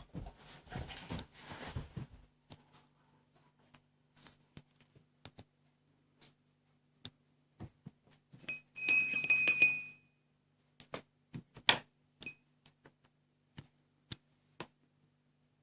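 A dog's squeaky toy giving one held, high squeak about nine seconds in, the loudest sound here. Around it come scattered soft clicks and rustles as the dog chews and mouths the toy.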